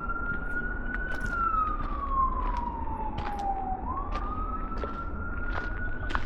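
Emergency vehicle siren in wail mode, its pitch climbing slowly, falling over about three seconds, then climbing again, about one cycle every five seconds.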